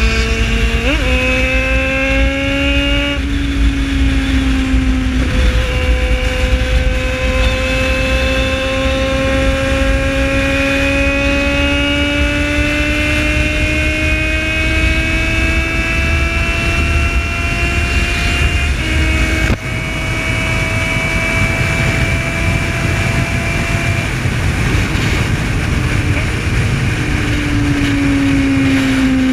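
Yamaha XJ6 motorcycle's inline-four engine pulling at highway speed. Its note jumps up about a second in, climbs slowly and steadily for a long stretch as the bike accelerates in gear, then shifts and rises again near the end. Steady wind rush on the onboard microphone runs underneath.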